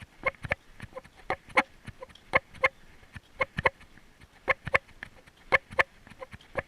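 An animal making a run of short, clucking pops, about three a second and often in quick pairs.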